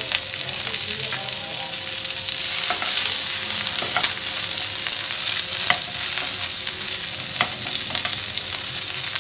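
Chopped onion, capsicum and green chillies sizzling in hot oil in a non-stick frying pan on high flame, stirred with a slotted spatula that scrapes against the pan every second or two.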